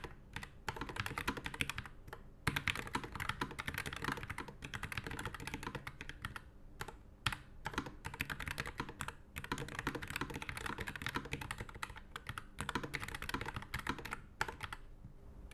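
Low-profile mechanical keyboard being typed on quickly, a dense run of key clicks that breaks off in several brief pauses.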